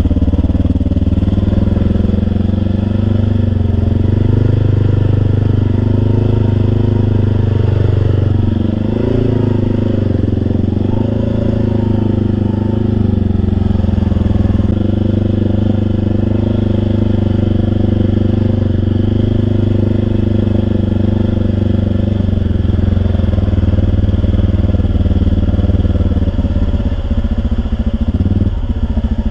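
Vehicle engine running loud and steady, its pitch wavering and shifting briefly about 8 and 12 seconds in, then holding steady again.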